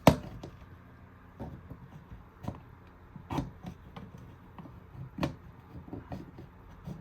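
A sharp click, then scattered light taps and clicks: handling noise while a test magnet is worked against a smoke detector that does not go into alarm.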